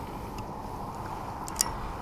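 Steady low rumble of a boat, with a light click about one and a half seconds in.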